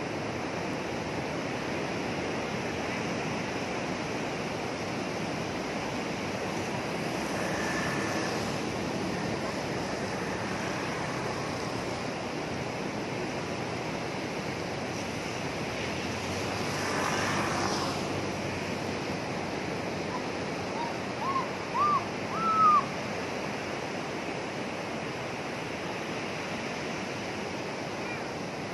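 Sea waves washing onto a beach in rough, windy weather, a steady surf with two larger swells breaking. Near the end come four short high chirps in quick succession, each louder than the last.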